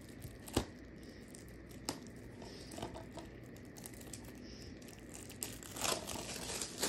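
Plastic shrink-wrap being picked at with fingernails and peeled off a DVD case: a few scattered faint crinkles and clicks, then denser crinkling in the last second and a half.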